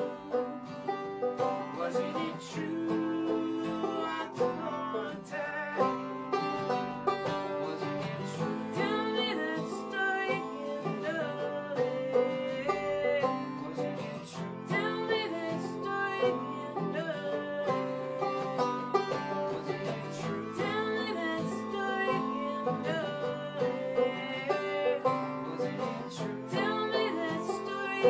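Banjo and acoustic guitar playing an upbeat folk tune together, with a woman's voice singing along in places.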